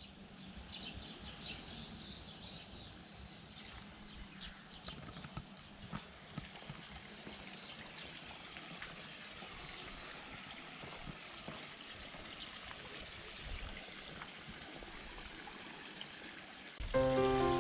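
Quiet outdoor ambience: a soft, steady hiss with scattered small chirps and light clicks. Background music starts suddenly near the end.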